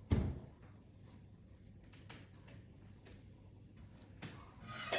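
A single dull thump, then faint scattered clicks and rustling as things are handled, with a short louder rustle just before the end.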